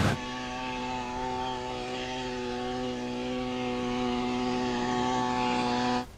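An engine running at a steady speed, giving a constant humming drone with a firm pitch that grows slightly louder, then cuts off suddenly near the end.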